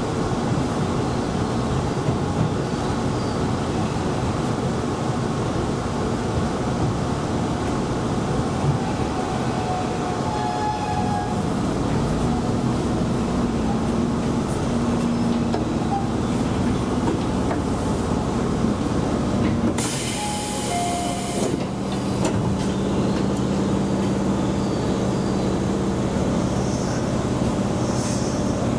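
Electric local train running on the rails, heard from inside the leading car: a steady rumble of wheels and running gear, with a steady motor hum coming in about halfway through. About two-thirds of the way through there is a short high-pitched burst of noise lasting a second or two.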